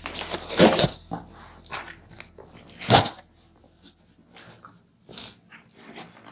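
Corrugated cardboard box flaps being pulled open and folded back, rustling and crackling, with two loud crunches, one just after the start and one about three seconds in, then quieter crackles.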